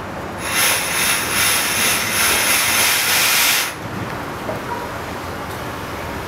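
Compressed air hissing out of the pneumatic system of a Keihan 700-series electric train standing at the platform: a loud burst of about three seconds that begins half a second in and cuts off suddenly, over a steady low hum.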